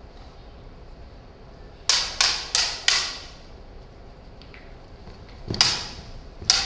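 Prop lightsaber blades clashing in a staged duel: four sharp clacks in quick succession about two seconds in, then two more strikes near the end.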